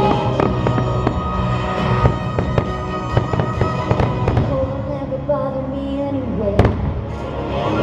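Aerial firework shells bursting in quick succession over the show's music played on loudspeakers. The bangs thin out in the second half, with one sharp, loudest bang near the end.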